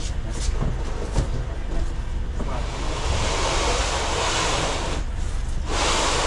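A large, heavy flat cardboard box sliding across a cargo van's plywood floor as it is pushed in. A few knocks as it is laid down, then a long scraping slide of about two and a half seconds, and a second, shorter push near the end.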